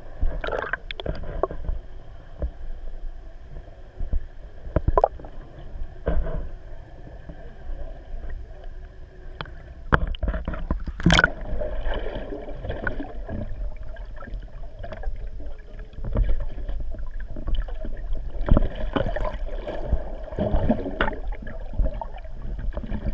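Underwater sound through a submerged camera: a constant low rumble of moving water, with scattered knocks and bubbling and one sharp knock about halfway through. A faint steady hum runs under the second half.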